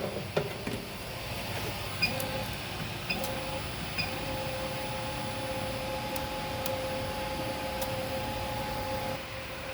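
Wire feeder motor of a laser welding machine running at full speed with a steady whine, feeding stainless filler wire through the torch tube. It starts after a few short control-panel beeps and cuts off shortly before the end.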